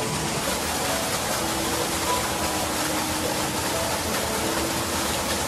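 Steady rushing water, like a stream or spring, with faint soft music notes over it.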